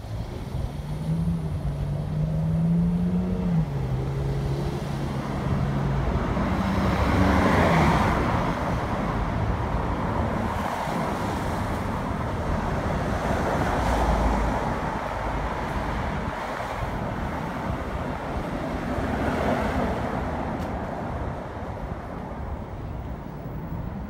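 Road traffic passing close by: several vehicles go past one after another, each swelling and fading. In the first few seconds an engine hum shifts up and down in pitch.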